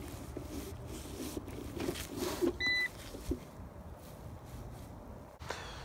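Jetson Rave hoverboard giving one short electronic beep about halfway through, amid light rustling and handling noise on grass.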